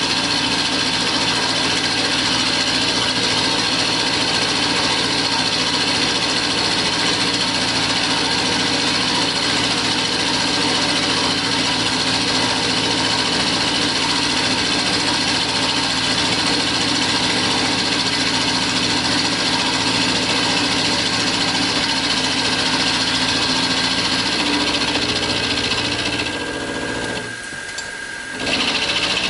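Benchtop milling machine's spindle running, with an end mill cutting a cast iron block under water coolant: a steady machine whine together with the cutting noise. It drops off for about two seconds near the end, then picks up again.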